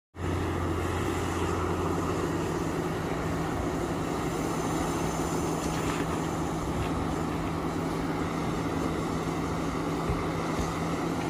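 Caterpillar 6015B hydraulic mining excavator's diesel engine running with a steady low drone while it loads soil into a dump truck.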